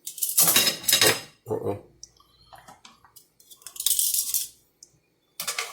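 A utensil scraping and clinking against a dish in several separate bursts as a garlic and onion mixture is spooned over a cooked hen, the longest burst near the start.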